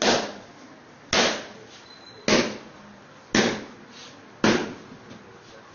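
A mallet striking a block held against a person's hip: five sharp blows about a second apart, each dying away quickly.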